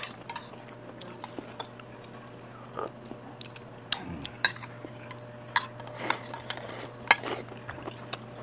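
Cutlery clinking against dishes at a meal: scattered sharp clinks and taps of spoon and chopsticks on bowls and plates, the loudest about halfway through and again near the end, over a low steady hum.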